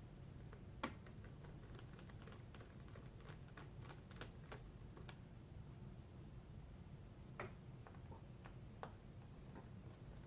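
Faint, scattered small clicks and ticks of a Phillips #0 screwdriver and tiny screws being worked out of a laptop screen's mounting frame, with a sharper click about a second in and two more in the second half.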